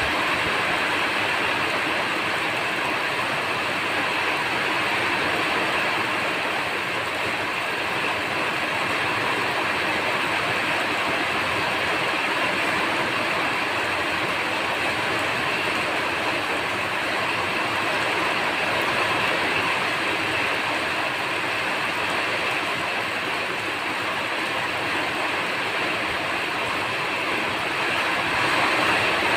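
Steady rain falling, an even hiss of raindrops with no breaks.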